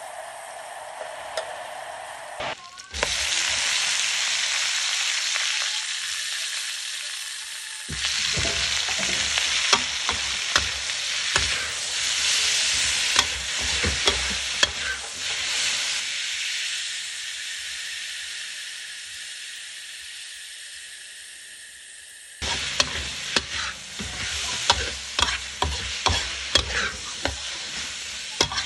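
Stir-frying in a wok: oil and food sizzling steadily while a metal spatula scrapes and clacks against the pan, first over minced pork, then over shredded cabbage and carrot. The sizzle jumps suddenly louder about three seconds in and changes abruptly a few more times.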